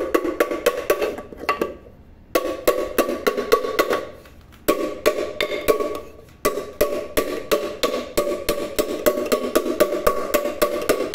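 Rapid knocking with a piece of wood on the rim of an aluminium pressure cooker, about five blows a second in three runs with short pauses, the pot ringing with each blow. The knocks are straightening the dented, pinched-in mouth of the pot so the lid will seat and hold pressure again.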